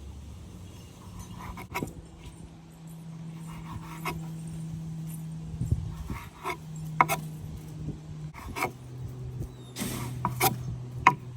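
Knife cutting the crusts off slices of bread: sharp knocks of the blade a second or two apart, over a steady low hum that drops in pitch about eight seconds in.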